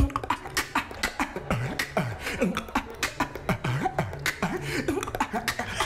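Beatboxing without the lips, the mouth held wide open by a cheek retractor: a fast, continuous pattern of crisp clicks and snares mixed with short, falling pitched bass notes.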